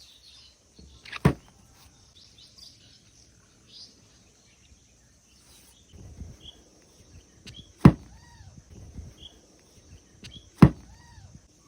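Three sharp knocks a few seconds apart, from a knife cutting through packed coloured sand and striking its tray, with birds chirping faintly and a steady high hiss behind them.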